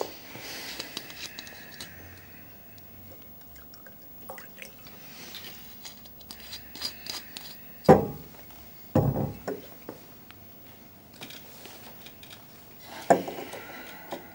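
A drink poured from a bottle into a glass, with a few sharp glass knocks, the loudest about eight seconds in and another near the end.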